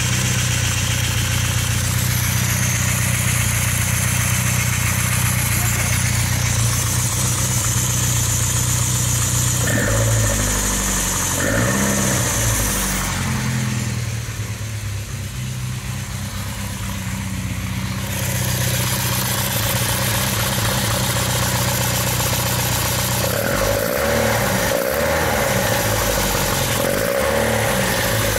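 Talbot Sunbeam Lotus's 2.2-litre Lotus twin-cam four-cylinder engine, breathing through twin carburettors with open trumpets, idling on one of its first runs after six years in storage while its cooling system is bled. The throttle is blipped a couple of times about ten seconds in, and several quick revs follow near the end.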